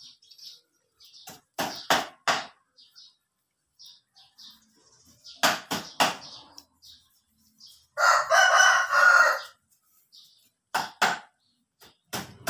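A rooster crows once for about a second and a half, starting about eight seconds in. Before and after it come a few sharp clicks in groups of two or three, and faint short high chirps.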